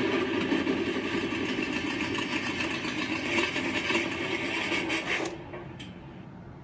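Beier USM-RC-2 sound module playing a simulated air-cooled Volkswagen Beetle engine through a small speaker, running on after a rev and then cutting off abruptly about five seconds in, followed by one short click.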